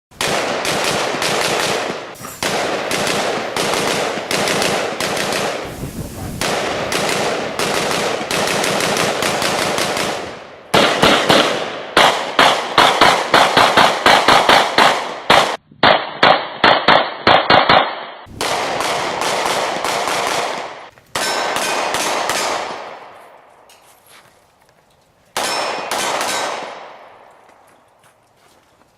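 Rapid semi-automatic gunfire from rifles and pistols: long strings of shots fired several a second, thinning into a few shorter groups with ringing echo tails and quiet gaps in the last third.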